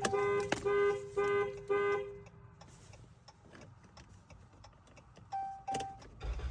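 2014 Jeep Cherokee's horn honking in even pulses about twice a second, the panic alarm set off from the key fob, stopping about two seconds in. Two short beeps follow near the end, and the engine starts up at the very end.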